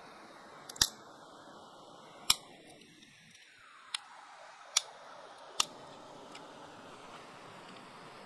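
Dry sticks snapped by hand for firewood: five sharp cracks in the first six seconds, the two loudest about one and two and a half seconds in, over a steady faint hiss.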